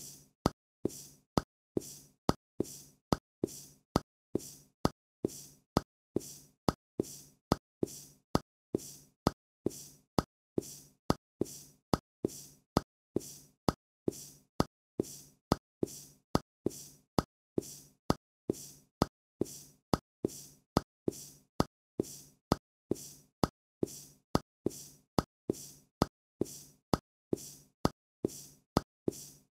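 Cartoon sound effect for a hopping animated stomach: a short wet plop repeated at a steady rate, about one every 0.7 seconds, each with a brief fading tail.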